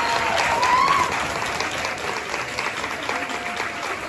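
Audience applauding, with a few voices calling out over the clapping in the first second.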